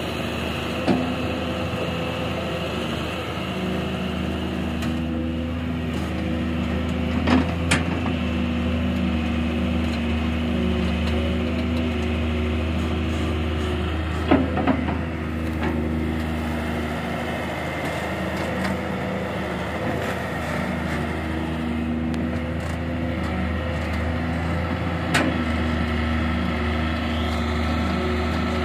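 Hitachi wheeled excavator's diesel engine running steadily under working load, with its pitch shifting slightly now and then. A few sharp knocks break in: once about a second in, a pair about seven seconds in, a pair about fourteen seconds in, and one near the end.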